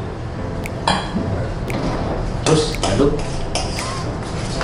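Metal spoon stirring and mashing thick mashed potato in a stainless steel saucepan, clinking and scraping against the pan in irregular knocks.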